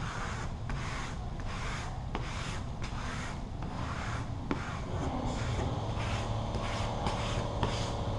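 A squeegee rubbing over vinyl wrap film laid on a car's bodywork, in repeated short strokes about two a second, pressing the film down dry. A steady low hum joins about five seconds in.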